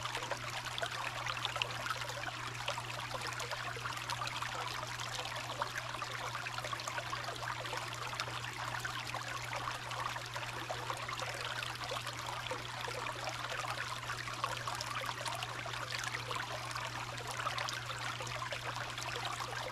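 Small creek running: a steady trickling and splashing of water, with a steady low hum underneath.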